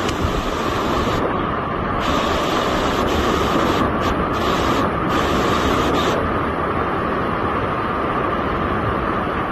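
Muddy floodwater rushing past in a fast torrent, a loud steady rush of water.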